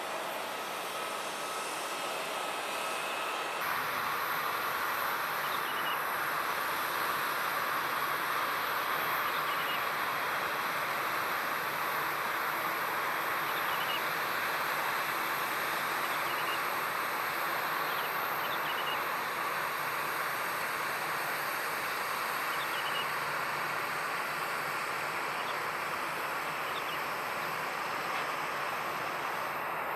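Steady rushing jet-engine noise from an airliner at the airport, stepping up slightly a few seconds in and then holding even.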